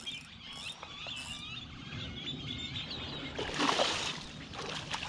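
Small birds chirping repeatedly in the background, with a short loud rush of noise about three and a half seconds in.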